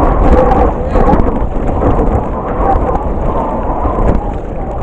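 Loud, steady low rumble of wind buffeting the microphone, mixed with rain and water noise.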